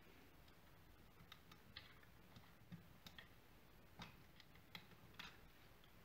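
Near silence, broken by faint, scattered small clicks and ticks from cables and a guide wire being threaded through a model submarine's metal and plastic equipment frame.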